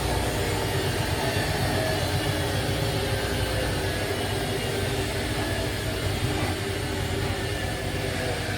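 Washing machine in its final spin cycle: a steady motor hum over a deep drum rumble, easing slightly in level as it goes.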